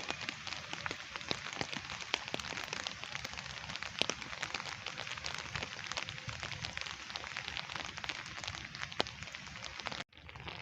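Heavy rain falling, a steady hiss with many individual drops ticking sharply on a hard surface. Near the end the sound breaks off for an instant and comes back softer, with fewer drops.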